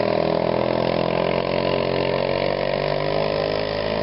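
Small motorcycle engine running steadily, its pitch sinking slowly.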